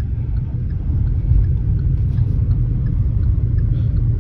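Low, steady rumble of a Kia car heard from inside the cabin while it is being driven: road and engine noise.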